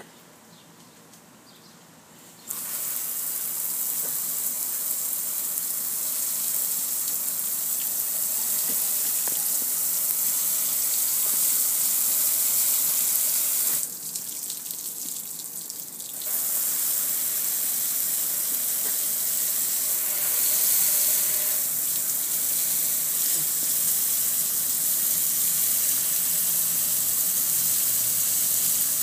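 Water sprayed from a hose onto a metal gas grill, splattering steadily. The spray starts about two seconds in, stops for about two seconds midway, then starts again.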